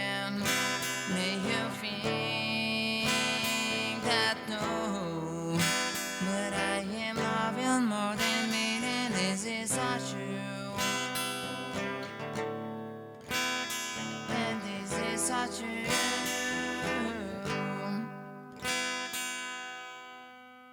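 Instrumental passage of a song on strummed acoustic guitar, with a wavering melody line over the chords, fading out over the last few seconds.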